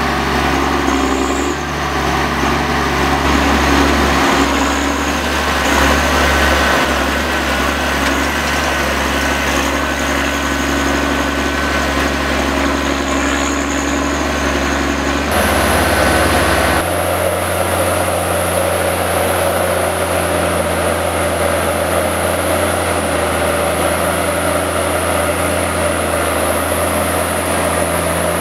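John Deere 1110D forwarder's diesel engine running steadily. A little over halfway through the sound changes abruptly and a steady high whine is added on top.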